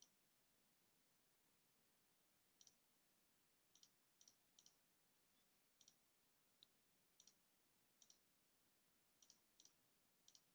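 Near silence, broken by about a dozen faint computer-mouse clicks at irregular intervals.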